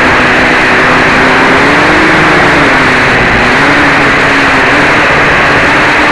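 Four DT750 brushless motors spinning 11x4.7 propellers on an H-frame quadcopter in flight, heard from a camera mounted on the craft: a loud, steady buzz with a hum whose pitch wavers up and down as the throttle shifts, rising briefly about two seconds in.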